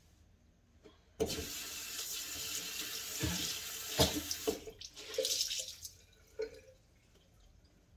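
Bathroom tap turned on about a second in, water running into the sink for a few seconds, then a few shorter splashes before it stops, with a knock partway through.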